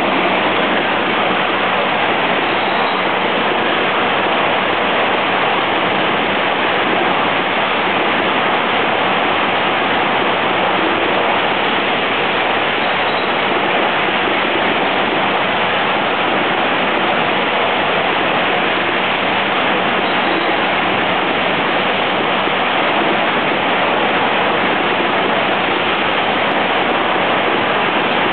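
Eight-head automatic rotary capper running at speed, applying flip-top caps to chewing gum packs: a loud, steady, even wash of mechanical noise with no separate strokes to pick out.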